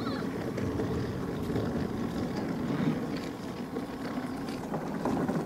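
DN-class ice yacht's runners sliding across lake ice, a steady rough rumbling noise.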